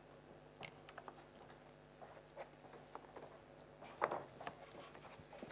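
Faint, irregular taps and clicks in a quiet pause, one slightly louder knock about four seconds in, over a steady low hum.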